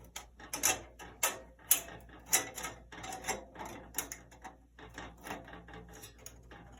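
Irregular metallic clicks, clinks and rattles, several a second, from a bandsaw blade being worked onto the saw's wheels and guides before it is tensioned.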